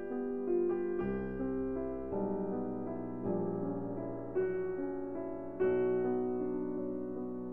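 Background music: a slow, gentle piano piece with held chords and a new note or chord about every second.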